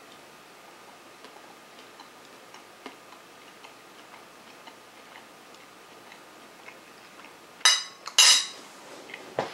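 Quiet room with faint, evenly spaced ticks, about three a second. Near the end come two short, sharp clattering noises as a plate and cutlery are handled.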